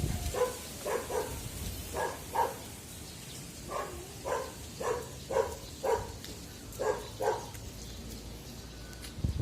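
Short, sharp animal calls, about a dozen, mostly in pairs, over a faint low steady hum.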